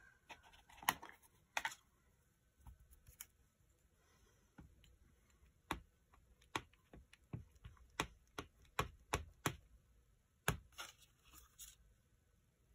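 Light plastic clicks and taps of an acrylic stamp block and ink pad: a few scattered clicks, then a run of quick taps, about two a second, as the block is dabbed onto the ink pad, and one last sharper tap near the end.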